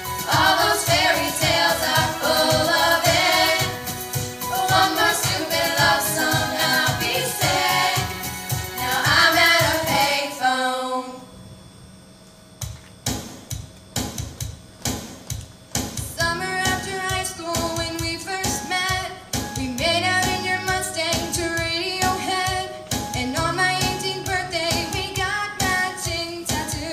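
Group of girls singing pop into microphones over a backing track with a steady beat. The song ends about eleven seconds in, and after a short lull a new backing beat starts and the singing picks up again a few seconds later.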